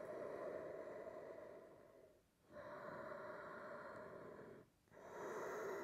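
Faint, slow ujjayi breathing through the throat: long hissing breaths of about two to two and a half seconds each, with short pauses about two seconds in and again near the end.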